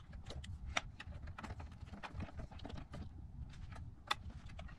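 Scattered light clicks and taps from hands handling parts and wiring on a workbench, irregular rather than rhythmic. Sharper clicks come about three-quarters of a second in and again about four seconds in.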